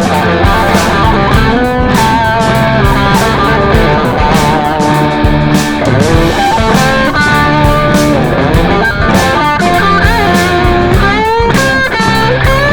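Rock music with electric guitar over a steady drum beat, the guitar bending notes near the end.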